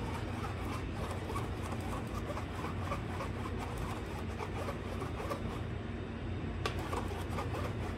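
A kitchen utensil scraping and rubbing rhythmically through puto batter, a few strokes a second, over a steady low hum.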